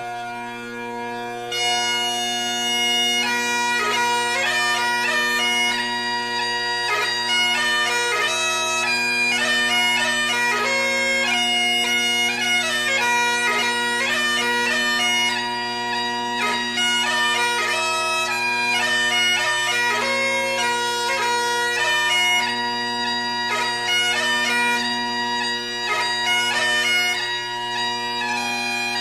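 Bagpipe music: steady drones under a chanter melody, the tune filling out about a second and a half in.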